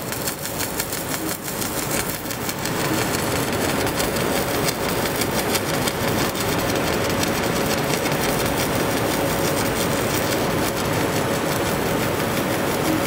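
FB50W fiber laser marker etching holes into aluminium: a steady, dense buzzing hiss with a faint steady tone, growing a little louder about two seconds in.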